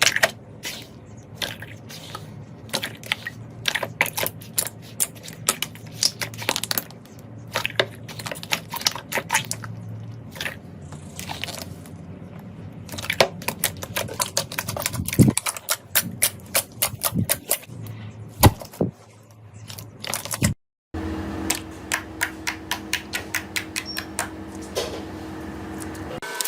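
Slime being squeezed and poked by hand, giving irregular crisp crackling clicks and pops. About twenty seconds in there is a cut, after which the clicks come more densely over a faint steady hum.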